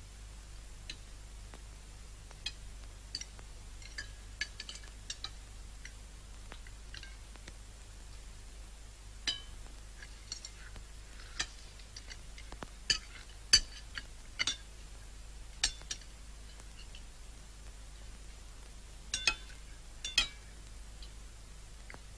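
Knives and forks clinking against china plates during a meal, in irregular scattered chinks, the loudest around the middle and a pair near the end.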